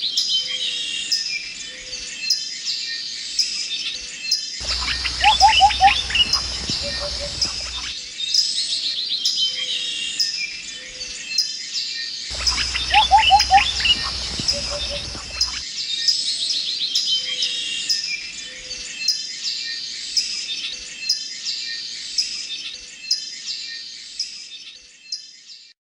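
Birdsong: many small birds chirping and twittering, with a passage of lower, fuller trills that comes back about eight seconds later in the same form, as in a looped recording. It fades out near the end.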